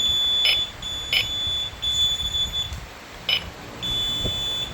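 Wireless addressable fire alarm equipment sounding a steady high-pitched tone, broken by a few short gaps, during detector coding. Three short beeps sound over it, about half a second in, about a second in and again past three seconds.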